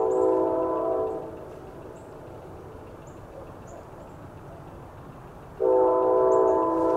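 Nathan K5LA five-chime air horn of an Amtrak GE P42DC locomotive sounding a chord of several notes: one long blast ends about a second in, and a second long blast begins near the end.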